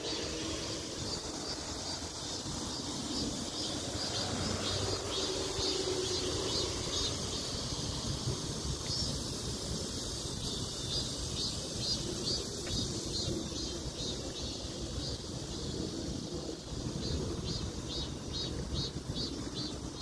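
Wind buffeting the microphone in a steady low rumble, with insects chirping faintly in a regular pulse of about three a second that drops out for a few seconds midway.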